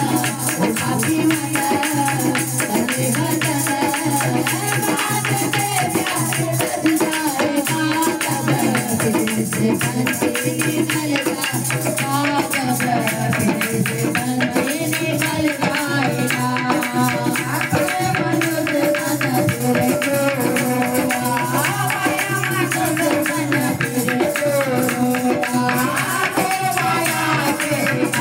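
Devotional Mata kirtan: voices singing a hymn to the Mother Goddess over a fast, steady beat of hand percussion with tambourine-like jingles.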